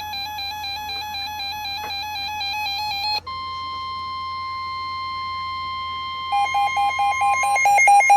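NOAA weather radio alert alarms. A rapidly warbling electronic alarm cuts off abruptly about three seconds in. The steady 1050 Hz weather radio warning tone then sounds, and about three seconds later another radio's pulsing beep alarm joins it, about three beeps a second.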